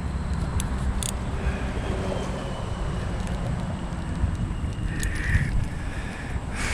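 Steady low rumble of wind buffeting the microphone, with a few sharp clicks and a short harsh call about five seconds in.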